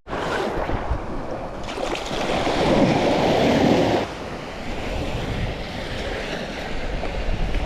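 Surf washing onto a beach, one wave swelling louder about two seconds in and falling away about four seconds in, with wind buffeting the microphone.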